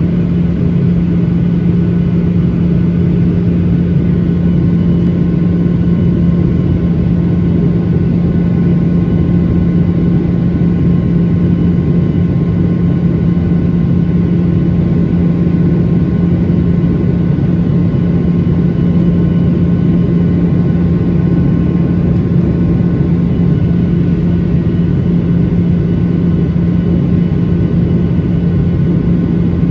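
Steady cabin noise aboard a Boeing 737-900ER: the drone of its CFM56-7B turbofans and the rush of air, with a strong low hum and a few faint steady whines above it, unchanging throughout.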